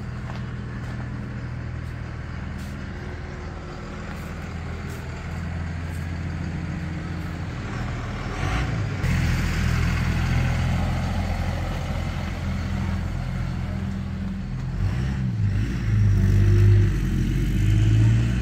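Low, steady engine-like hum with a light background wash, getting louder in the second half.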